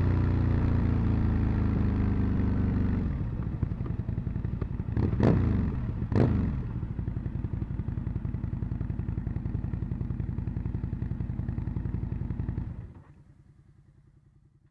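Aprilia RSV Mille's V-twin engine settling to a lumpy idle, blipped twice about a second apart. Near the end the sound drops away sharply, leaving only a faint, fading pulsing.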